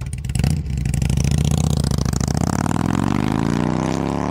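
Harley-Davidson V-twin motorcycle engine revving. It swells about half a second in, then its pitch climbs steadily through the last two seconds.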